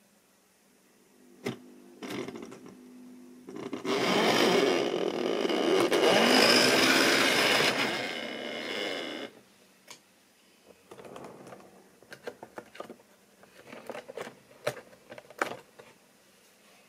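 Model railway diesel locomotive hauling Inter-City coaches, starting off and running past close by. A short click and a low motor hum come first, then loud whirring and rattling of the motor and wheels on the track for about five seconds, then lighter clicking and rattling as the train moves away.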